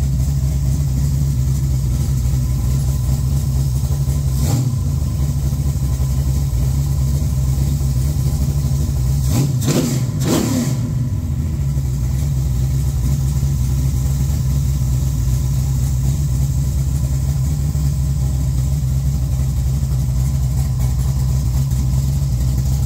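A 410 cubic inch small-block Mopar V8 (a bored-over 360 LA with a hydraulic roller cam) running steadily on an engine test stand. Its revs rise briefly about four and a half seconds in, and again in a quick rise and fall around ten seconds in.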